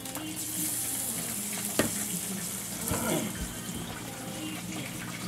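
Battered zucchini slices going into hot oil in a pan on a gas grill, the oil sizzling and bubbling hard: the oil is plenty hot. The hiss is loudest for the first two seconds or so, with a sharp click a little under two seconds in and a clatter around three seconds in.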